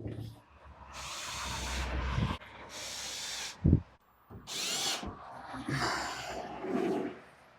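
Power drill running in three short bursts, its pitch rising and falling with each one, with a single sharp knock between the second and third bursts.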